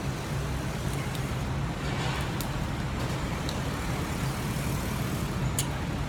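Steady low rumble of city street traffic, with a few faint light clicks over it.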